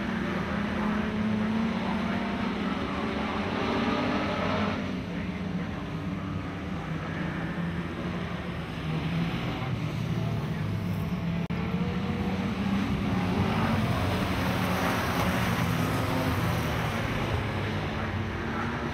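Engines of a pack of dirt-track race cars running together as they lap, the pitch rising and falling with the throttle.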